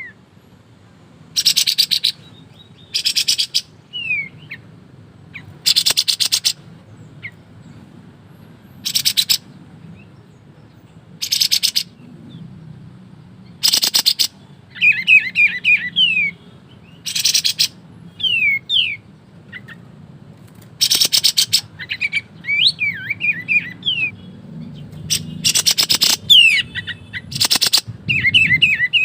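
Kapas tembak bird singing in short, rapid rattling bursts ('ngebren'), about one every two to four seconds. From about halfway through, quick sliding whistled notes come between the bursts.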